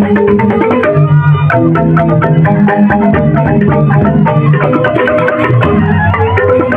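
Balinese joged bumbung gamelan playing: bamboo xylophones struck in fast, dense interlocking patterns over drums.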